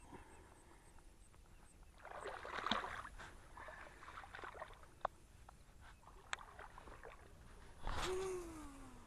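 Water splashing and sloshing in two bouts, about two seconds in and again near the end, with a few sharp clicks between. The second bout carries a short tone falling in pitch.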